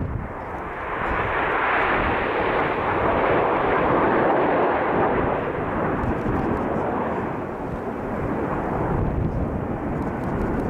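Jet noise from a formation of nine BAE Hawk T1 jet trainers flying past. The rushing noise swells over the first couple of seconds, is loudest for a few seconds, then slowly fades as the formation climbs away.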